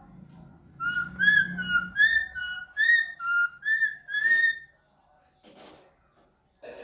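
A parrot whistling a quick phrase of about nine short notes that hop between a higher and a lower pitch, then stopping.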